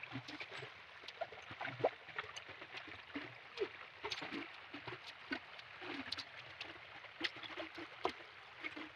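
Quiet splashing and gurgling of shallow river water, with many small splashes and clicks.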